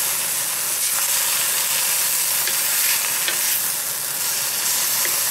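Chicken and vegetables sizzling in a hot carbon-steel wok, with a steady frying hiss and a few light scrapes and taps as a bamboo spatula stirs and tosses the food.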